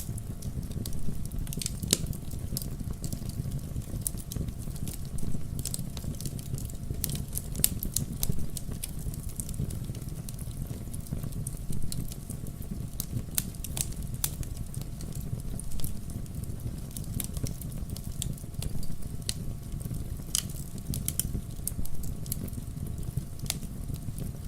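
Wood logs burning in a fireplace: a steady low rumble of the flames with irregular sharp crackles and pops from the burning wood.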